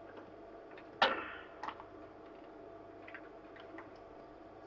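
Small clicks from handling tools at a repair bench: one sharp click about a second in with a brief ringing tail, a second softer click just after, then a few faint ticks. A faint steady hum runs underneath.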